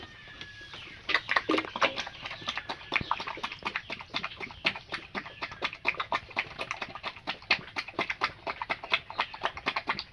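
Pigs eating grain feed, a fast, irregular run of wet chewing and smacking that starts about a second in, loudest just after it starts.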